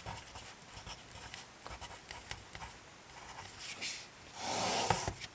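Pencil writing on paper: faint, short scratching strokes. Near the end comes a brief, louder rush of hiss.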